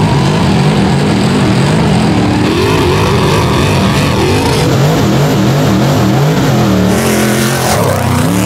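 Two off-road race trucks' engines at full throttle, their notes climbing and dropping again and again as they accelerate and shift through the gears, with two engine notes overlapping.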